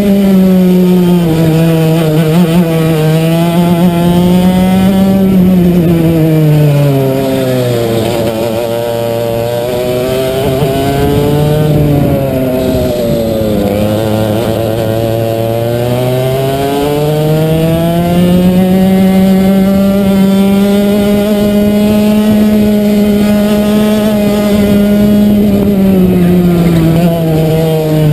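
Racing kart's two-stroke engine heard onboard at full race pace, its note rising and falling as the driver lifts for corners and accelerates out. The revs drop low through a long slow section in the middle, climb back to a high steady note, and fall again near the end.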